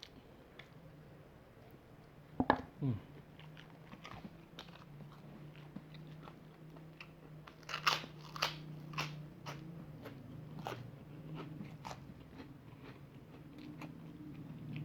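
Close-up chewing and crunching of crispy fried chicken, with sharp bites and mouth clicks that are loudest about two and a half and eight seconds in. A low steady hum runs underneath from about a second in.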